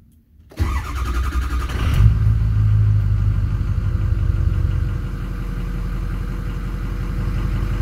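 Ford 6.0L Power Stroke V8 turbo diesel in a 2007 F-350 cranked over by the starter for about a second and a half, firing up about two seconds in, running a little higher for a few seconds, then settling to a steady idle, heard from inside the cab.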